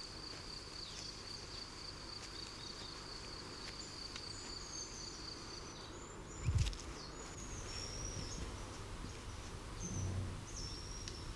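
Outdoor nature ambience: an insect's steady, high trill for about the first six seconds, then small birds giving short high chirps. A brief low thump comes about six and a half seconds in.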